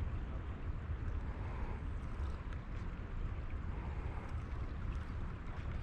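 Steady rushing of river water, with a low rumble of wind buffeting the microphone.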